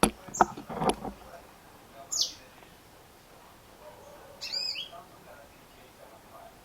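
Female yellow-fronted canary (Mozambique singing finch, Serinus mozambicus) calling: a single falling call about two seconds in, then a quick run of short arched high notes a couple of seconds later. A few loud knocks in the first second are the loudest sounds.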